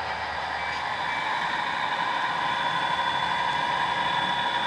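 HO scale model diesel locomotives running past, giving a steady engine-like hum over a hiss that grows a little louder after about a second as the units come by.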